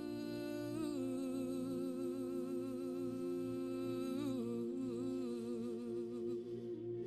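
A human voice humming a slow, wavering line with vibrato over a steady held drone; the hum comes in about a second in, drops in pitch about four seconds in and fades out near the end.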